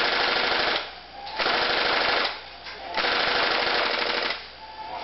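Daytona Gun HPA (high-pressure air) airsoft MP5K prototype firing fully automatic in three bursts of about a second each, with short pauses between them.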